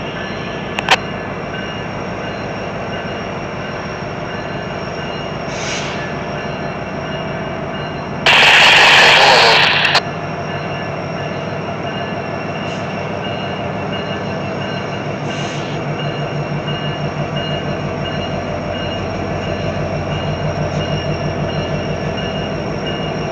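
Norfolk Southern diesel locomotives working as a mixed freight train starts to move: a steady engine drone with a low throb that grows stronger in the second half. A loud hiss of about two seconds starts and stops sharply about eight seconds in.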